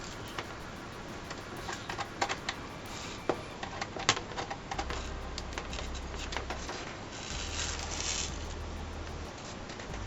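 Irregular clicks and taps of a ThinkPad laptop's plastic keys and case being pressed and handled, with a short rustle about three quarters of the way through.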